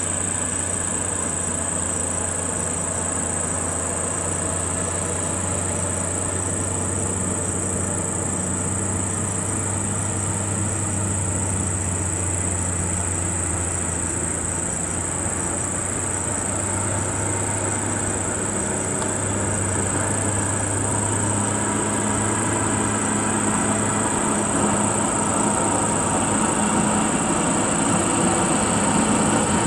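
Scania dump truck's diesel engine running in a low, steady drone as the truck approaches, growing a little louder near the end. A steady high whine sits over it throughout.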